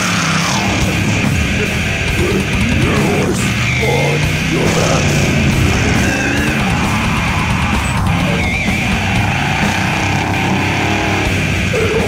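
Loud heavy metal music playing steadily.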